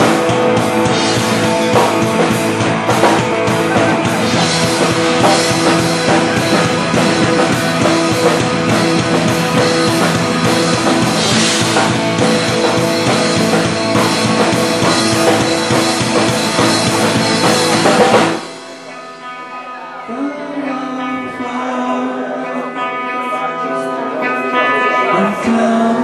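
Rock band playing live: electric guitars, bass guitar and drum kit at full volume, breaking off suddenly about 18 seconds in to a much quieter passage of held, sustained notes.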